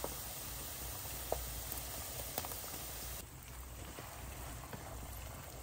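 Oil sizzling in a frying pan as chopped onion deep-fries, a steady hiss with a few sharp pops. A little past halfway, with raw potato sticks in the oil, the sizzle turns quieter and duller.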